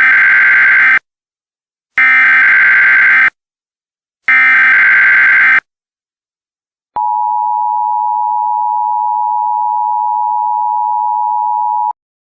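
Emergency Alert System SAME header: three harsh, buzzy data bursts about a second long, a second apart. After a short pause comes the steady EAS attention tone for about five seconds, which cuts off abruptly. Together they announce the start of an emergency alert broadcast.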